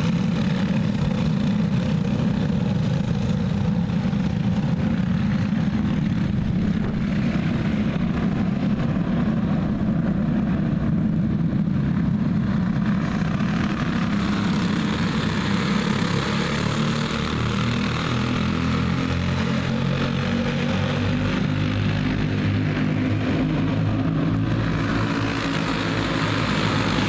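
A field of racing karts with single-cylinder four-stroke clone engines running flat out together, a steady many-engine buzz. From about halfway on, the karts come close past and separate engine notes stand out more clearly.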